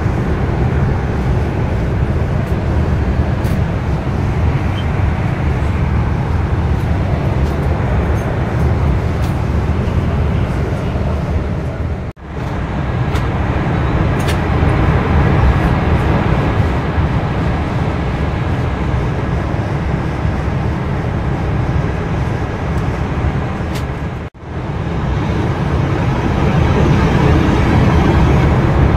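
Steady cabin noise of a jet airliner in cruise: an even, low rushing of engines and airflow with no let-up. It cuts out sharply for an instant twice, about a third and about four-fifths of the way through, where recordings are joined.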